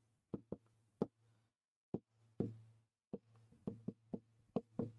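Marker tapping against a whiteboard while writing: a string of quick, irregular taps with brief pauses.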